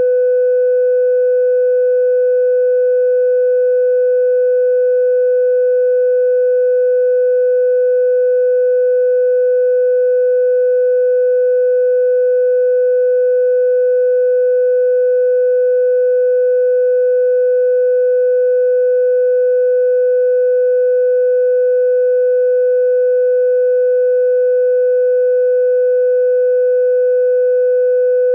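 Steady electronic sine test tone held at one mid pitch without change, with faint higher overtones, played as the first phase of a phone speaker diagnostic test for listening for buzzing, vibration or loose rattling in the speaker.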